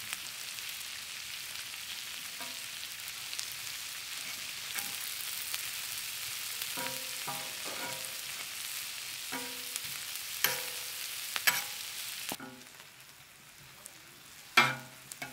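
Shallots and green chillies sizzling in oil on a flat iron tawa griddle, with a metal spatula scraping and clinking against the iron plate several times in the second half. The sizzle drops away about twelve seconds in, and two loud knocks come near the end.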